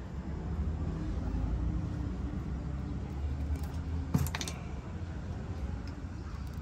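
Steel wire-stripping pliers working on a thin electrical wire's insulation, with one sharp click of the jaws about four seconds in and a few fainter ticks, over a steady low rumble.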